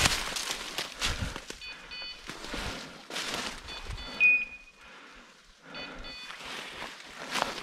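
Footsteps crunching and rustling through deep dry fallen leaves, in an uneven walking rhythm. Over them come pairs of short high pips every couple of seconds, and a single short high whistle-like tone about four seconds in, the loudest sound here.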